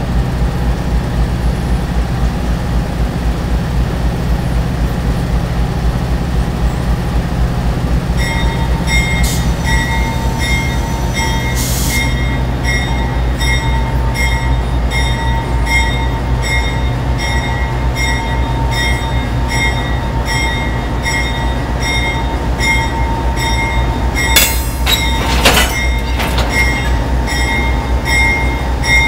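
Amtrak GE P42DC diesel locomotive with its V16 engine running at idle, a steady low pulsing rumble. About eight seconds in, a bell starts ringing at an even beat and keeps going. Short hisses of air come near twelve seconds and twice around twenty-five seconds.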